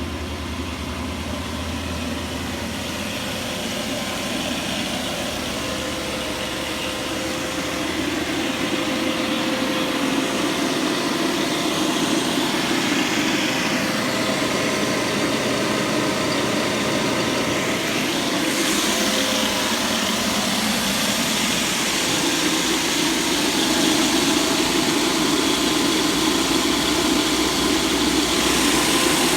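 A machine running steadily with a continuous mechanical hum and faint steady tones, slowly growing louder.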